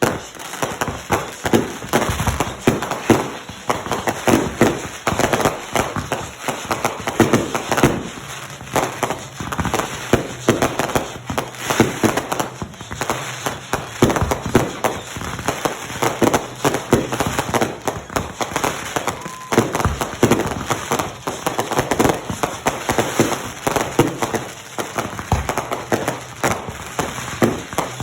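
Fireworks going off: a continuous, irregular barrage of sharp pops and crackles, several a second, without a break.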